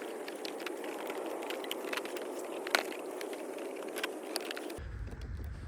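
Hands stretching rubber bands over a foam RC plane's wing and fuselage: a steady rustle of handling with scattered short clicks and scrapes. A little before the end it gives way to a low rumble.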